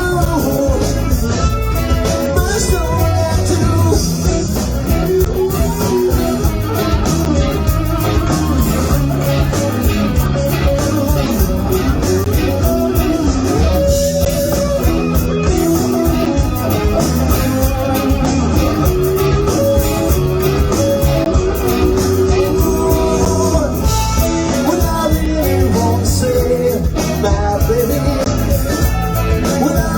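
A rock band playing live, with electric guitar, bass and drums and a voice singing over them.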